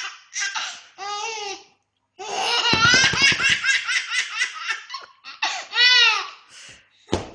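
Baby laughing hard: a couple of short bursts, then a long run of quick laugh pulses, then a single high squeal that rises and falls near the end.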